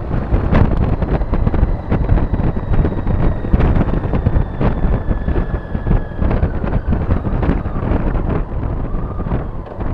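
Wind buffeting the microphone of a motorcycle at road speed: a loud, gusty rumble. Under it, the BMW K75's engine runs steadily, with a faint whine that slowly falls in pitch.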